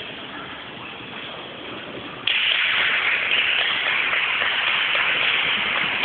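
Audience applause breaking out suddenly about two seconds in and continuing at a steady level, after a softer background hiss of crowd noise.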